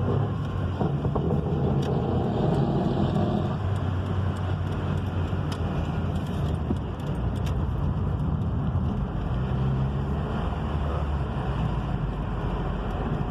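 Vehicle pulling away under acceleration in gear, its engine note shifting as it goes, with scattered sharp clicks through the first half. This is the mystery crunching noise that comes only when accelerating in gear and not when downshifting; its cause is unknown.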